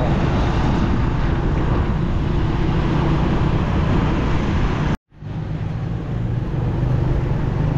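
Motorbike ride: the engine running with steady road noise. The sound cuts out abruptly for a moment about five seconds in, then picks up again.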